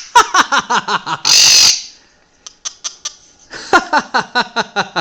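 Blue-crowned conure vocalising: a fast run of laugh-like calls, then a short harsh screech about a second and a half in. A few sharp clicks follow, then another fast run of laugh-like calls near the end.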